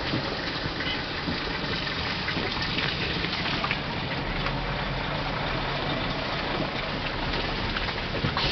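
Car engine running with road and tyre noise, heard from inside the car's cabin on a muddy road. A low, steady engine hum comes in about halfway through.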